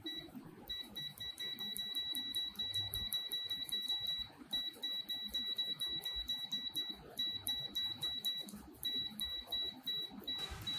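ANENG AN8008 multimeter's continuity buzzer beeping as the probes touch a component lead. It is a high steady tone that sounds at once on contact and stops when contact breaks, so it comes in long stretches with brief gaps, then a run of short beeps near the end.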